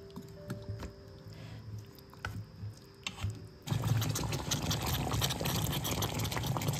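Thick peanut sauce with matooke boiling in a pot: dense bubbling and popping that starts abruptly about three and a half seconds in. Before that there are only a few faint clicks over a low steady hum.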